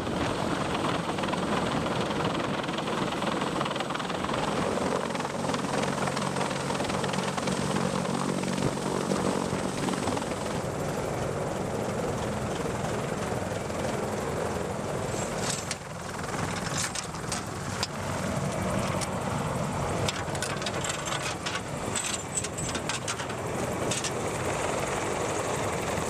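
CH-53E Super Stallion heavy-lift helicopter running steadily overhead while hovering with a sling load. Scattered sharp clicks and rattles come in from about halfway through.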